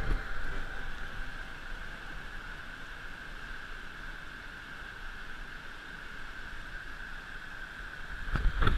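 Rushing white-water rapids: a steady, even hiss of fast-flowing water tumbling over rocks. Near the end it turns suddenly louder, with a few knocks.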